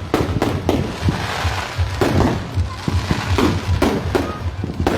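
Fireworks going off, with many bangs and crackles in quick, irregular succession over a low rumble.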